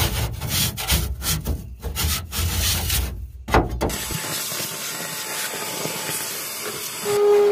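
Hand tool scraping and chipping hardened pour foam out of an aluminum jon boat's bench: rapid, irregular scraping strokes for about four seconds. Then it breaks off abruptly into a steady hiss.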